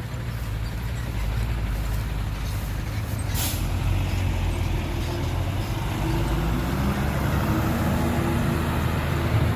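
Heavy diesel engine of a dump truck or bulldozer running with a steady low rumble, with a short hiss of air about three and a half seconds in; from about six seconds the engine revs up, its pitch rising.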